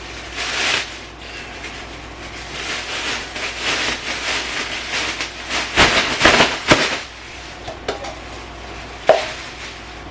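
Kitchen clean-up handling noise: steady rustling with scattered clatter, and a few sharp knocks around six to seven seconds in and once more about nine seconds in.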